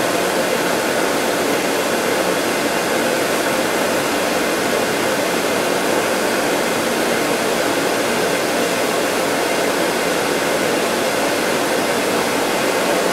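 Bench polishing lathe running steadily, a buff loaded with white polish spinning against a metal ring, together with the steady fan noise of a dust-collector polishing hood.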